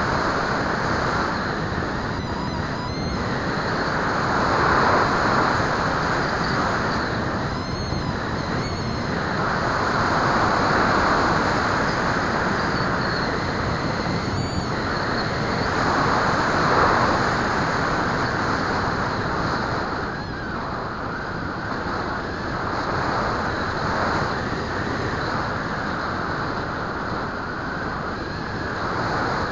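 Wind rushing over the microphone of a Bixler FPV plane's onboard camera in flight, a steady loud rush that swells and fades every few seconds, with a faint high whine above it.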